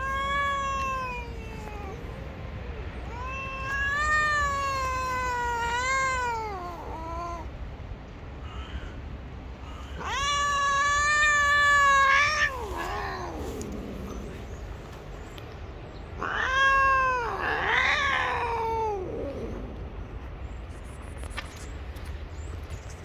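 Cat meowing in long, drawn-out calls, four of them, each lasting two seconds or more with short pauses between; the call about ten seconds in is the loudest.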